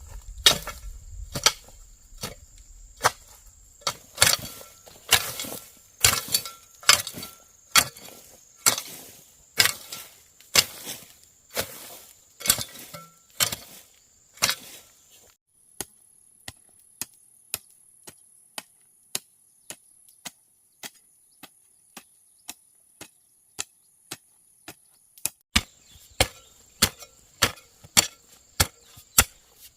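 Steady rhythmic chopping, about one stroke a second, softer and quicker for several seconds in the middle. Insects keep up a steady high-pitched trill underneath.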